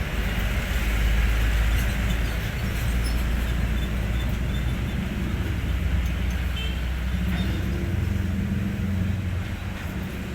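Hino 500 truck's diesel engine running steadily.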